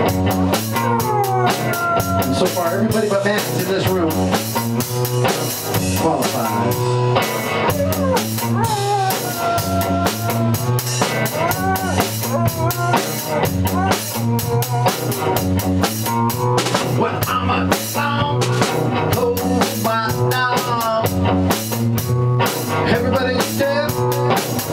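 A rock band playing drum kit and guitar while a Basset-terrier mix howls along, in several long wails that rise and fall in pitch over the music.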